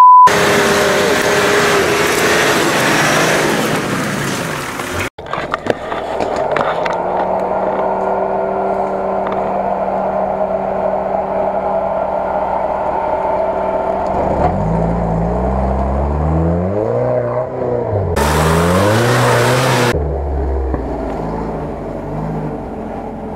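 Off-road 4x4 engine working under load, its pitch steady at first, then rising and falling over and over in the second half as the throttle is worked.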